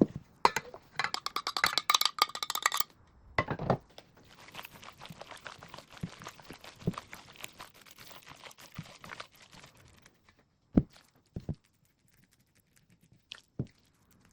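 Kitchen food-preparation sounds: a quick run of clinking and clattering of dishes and utensils, then several seconds of steady crackly scraping and rustling, and a few separate knocks near the end.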